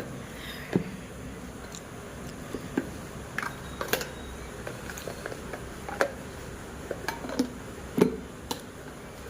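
Scattered clinks and knocks of kitchen utensils and lunch-box containers being handled, a dozen or so short separate hits, some ringing briefly, the loudest about a second in and near the end.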